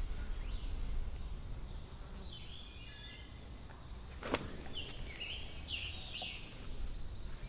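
Outdoor ambience of songbirds chirping in short phrases over a steady low rumble, with a single sharp snap about four seconds in.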